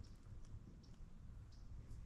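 Near silence: a faint low rumble with four or five soft, high clicks about every half second.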